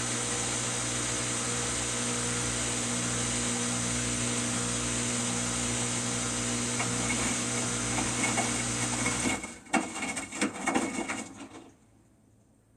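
Samsung washing machine running with a steady motor hum and whine. About nine seconds in, the steady running cuts off abruptly, followed by a couple of seconds of irregular knocks and rattles, and then it goes quiet.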